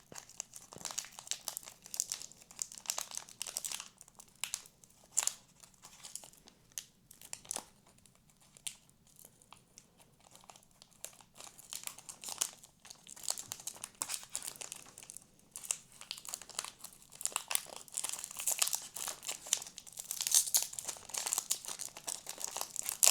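Foil booster pack wrapper crinkling as it is slowly and carefully torn open by hand, in irregular crackles that grow busier and louder near the end.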